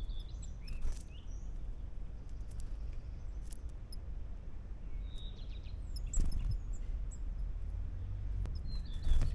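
Small birds chirping in short calls with quick pitch glides, heard near the start, about halfway and near the end, over a steady low rumble of wind on the microphone. A few sharp knocks stand out, the loudest just before the end.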